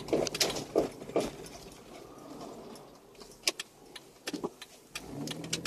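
Handling noise from a phone rubbing against clothing, with a few sharp clicks around the middle and a steady low hum starting near the end.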